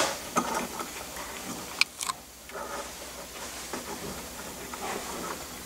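Small metallic clicks and handling rattles of screws and T-nuts being threaded onto a steel linear guide rail, with a sharp click just under two seconds in and another right after.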